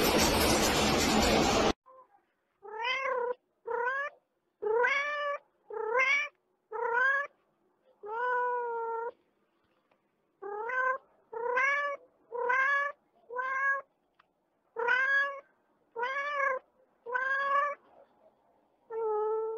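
A steady loud rushing noise cuts off abruptly about two seconds in. A cat then meows about fourteen times in a row, each meow rising and falling in pitch, one held longer in the middle.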